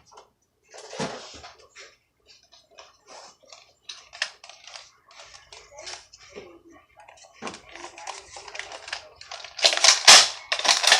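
Hard plastic clicking and rattling from a toy foam-dart blaster being handled and loaded, with a louder burst of clatter near the end. The darts will not work in it.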